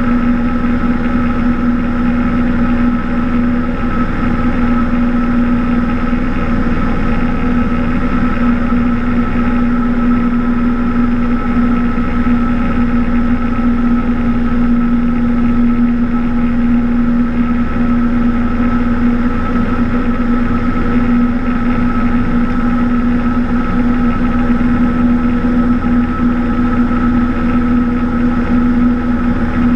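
Cessna 172's piston engine and propeller running steadily, a constant drone whose pitch does not change.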